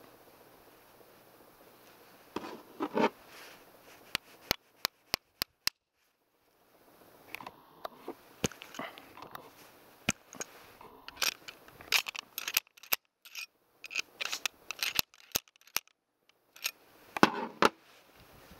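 Hand-loading a .45-calibre black-powder derringer: scattered sharp metallic clicks and taps with scraping and rustling as a ball is pressed into the muzzle and the pistol is handled.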